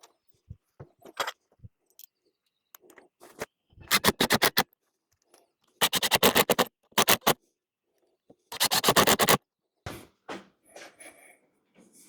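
Hinge screws being driven into a door with a screwdriver: rapid clicking in three short runs, with scattered light knocks and scrapes between them.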